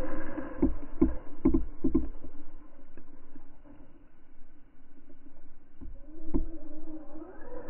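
Brushless electric motor of an RC truck on paddle tyres whining as it hydroplanes across a pond, the whine falling away as the truck speeds off and climbing in pitch again near the end as it comes back. In between, a run of dull water slaps against the camera at the waterline, several in the first two seconds and one more near the end.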